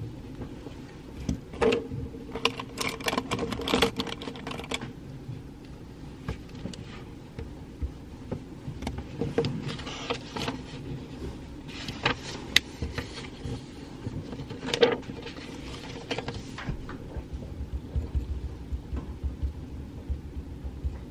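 Pencil writing on paper: bursts of quick scratching and tapping strokes with pauses between them, over a steady low hum. A low rumble comes in near the end.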